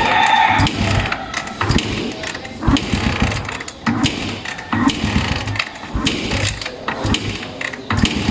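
Kawasaki Barako 175's single-cylinder four-stroke engine being cranked over several times without catching: a mechanical clatter of the starting mechanism, the hard start typical of this model.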